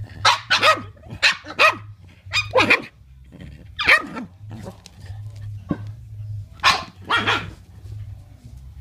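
Boston terriers barking in rough play: about nine sharp barks, several in quick pairs, with a quieter stretch in the middle.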